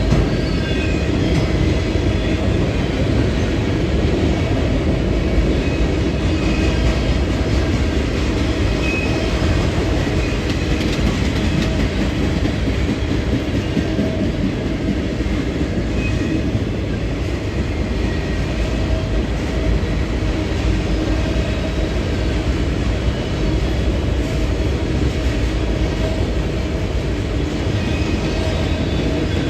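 Train cars rolling past on the rails, a loud steady rumble of wheels with faint brief high tones now and then.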